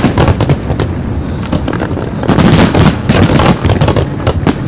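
Aerial fireworks display with many shells bursting at once: a continuous barrage of rapid, overlapping bangs and crackles, with a heavier run of low booms about two and a half seconds in.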